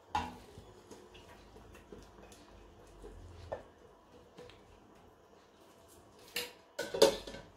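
Enamel bowl and stainless steel cooking pot knocking lightly as sliced bamboo shoots are tipped into the broth, then two louder clattering knocks of kitchenware near the end.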